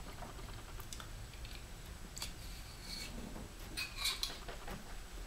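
Light clicks and taps of a disassembled folding knife's metal liners and handle parts being handled, a few scattered ones, the loudest about four seconds in.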